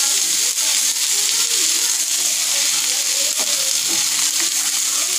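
Chopped vegetables and paneer cubes sizzling in oil on a flat tava griddle, with a steady hiss, stirred and scraped with a wooden spatula.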